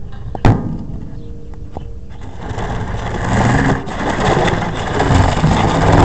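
Handling noise of a camera held against a metal mesh grille: a sharp knock about half a second in, then from about two seconds a loud scraping and rubbing that builds and stops abruptly just after the end.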